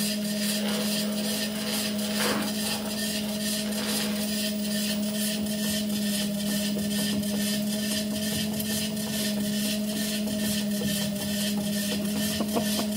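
Electric treadmill running: a steady motor hum with a regular ticking, about four ticks a second, as the belt turns.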